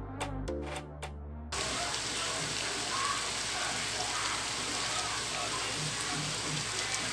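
Electronic music stops abruptly about a second and a half in. After that, pork cubes sizzle steadily in a pot, an even hiss with faint crackles.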